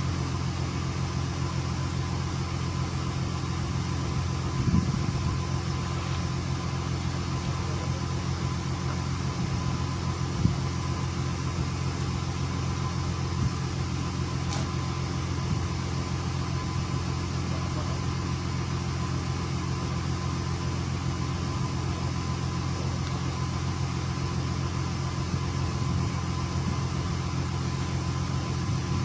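Fishing boat's engine running steadily: a low, even hum, with a couple of light knocks about five and ten seconds in.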